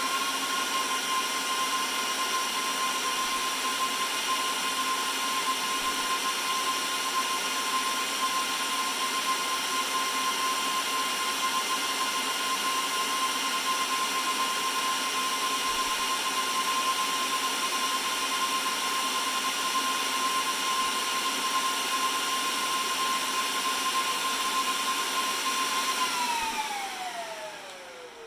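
Dell PowerEdge R630 server's cooling fans running at full speed during startup: a loud, steady high whine over a rushing hiss. Near the end the fans slow down and the whine falls in pitch and fades.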